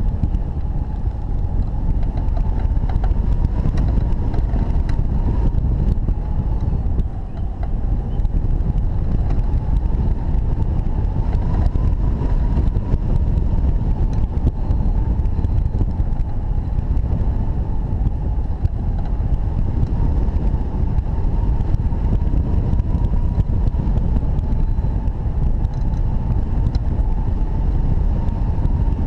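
Airflow rushing over the microphone of a camera mounted on a hang glider's wing in flight: a loud, steady low rumble with a faint whistle that wavers slightly in pitch, easing briefly about seven seconds in.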